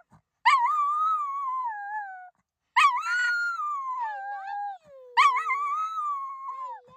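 Pet dog howling three long, wavering, talking-like calls that sound like 'I love you'. Each call starts with a sharp rise and then slides down in pitch.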